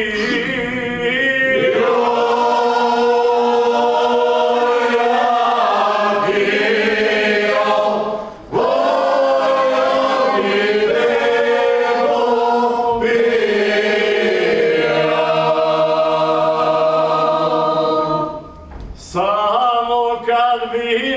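Men's folk vocal group singing a traditional Croatian song a cappella in harmony, holding long chords, with two short breaks between phrases.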